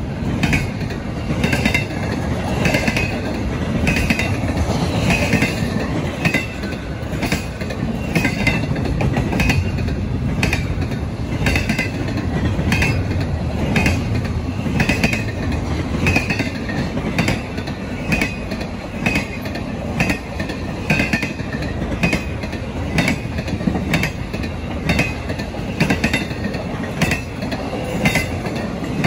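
Double-stack intermodal freight cars rolling past at steady speed: a continuous rumble with a rhythmic clickety-clack of wheels passing over the track.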